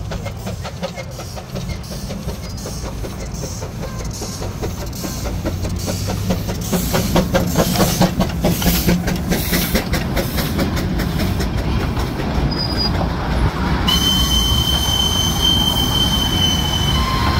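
Darjeeling Himalayan Railway narrow-gauge steam locomotive approaching, its rhythmic chuffing growing louder as it nears. A steady high-pitched squeal sets in near the end.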